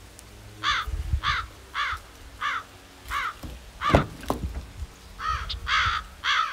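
A crow cawing over and over, a harsh call about every half second: six caws, a short pause, then three more. A low thump comes about four seconds in.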